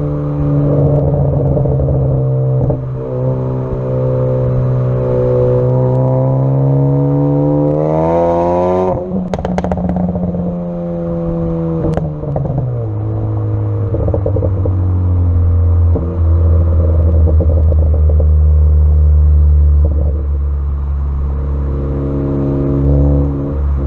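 Tuned Ford Focus ST engine and exhaust, with a catless downpipe and a pops-and-crackles tune. It runs at steady revs, climbs about eight seconds in, and breaks into a quick run of sharp pops and crackles as the revs drop. It then settles to a lower steady drone and starts to climb again near the end.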